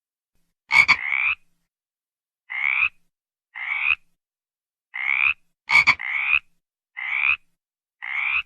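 A frog calling: a series of short rasping calls, about one a second, each rising slightly in pitch, two of them opening with a sharp click.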